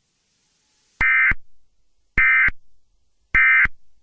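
Emergency Alert System end-of-message (EOM) data bursts: three short bursts of digital SAME data tones, a little over a second apart. They signal that the alert message is over.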